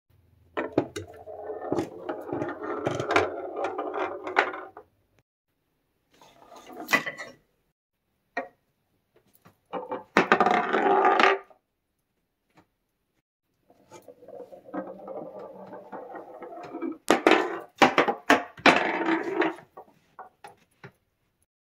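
A glass marble rolling over painted wooden stair treads and old floorboards: a rumbling roll broken by sharp clicks and knocks. It comes in several separate runs with silent gaps between them, and the busiest clicking is late on.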